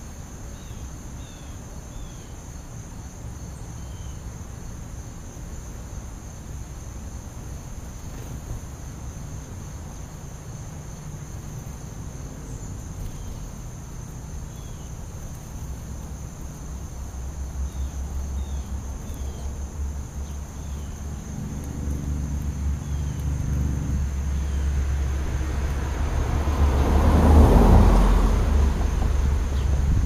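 A motor vehicle passing on a nearby road: a low engine and tyre rumble that builds through the second half, peaks near the end and then eases. Under it, a steady high insect buzz and a few faint bird chirps.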